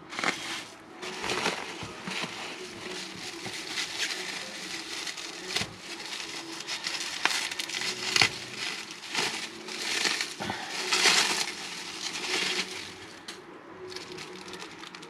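Plastic bubble wrap rustling and crinkling in irregular bursts as it is handled and searched through, dying down near the end.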